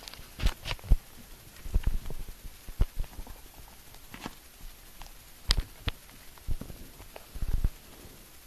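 Handling noise from a handheld camera: irregular bumps, knocks and rubbing on the microphone as the camera is moved about. The sharpest knocks come about a second in and again about five and a half seconds in, and a cluster of dull thuds comes near the end.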